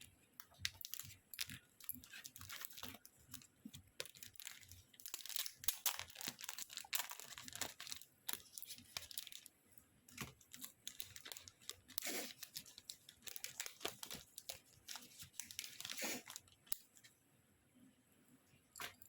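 Packaging being handled and torn open by hand: irregular crinkling, rustling and tearing with scattered sharp crackles.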